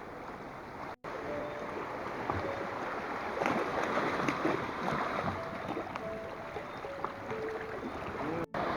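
Sea water and small waves at the shore, a steady rushing noise with a few faint short tones over it; the sound drops out briefly twice, about a second in and near the end.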